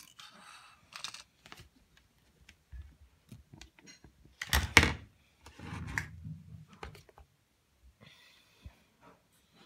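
Handling noise of small model airplanes being picked up and moved about on a wooden surface: scattered clicks and light knocks, the loudest a close pair of knocks about four and a half seconds in.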